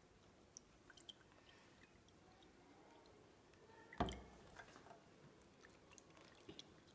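Faint trickle of water poured from a plastic watering can into a drinking glass and then a plastic cup, with scattered small ticks and one sharp knock about four seconds in.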